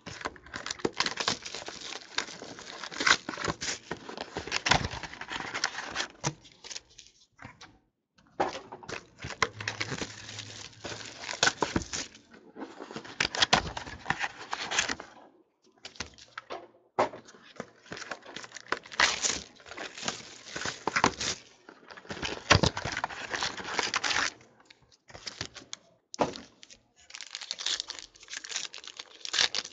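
Foil wrapper of a 2014 Panini Crown Royale football card pack crinkling and tearing open, mixed with the rustle and clicks of a cardboard box and cards being handled. It comes in several stretches of crackling separated by short pauses.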